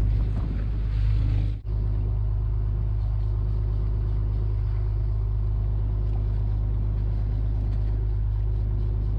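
Fishing boat's engine running steadily, a constant low drone with a faint hum above it. It drops out for an instant about one and a half seconds in.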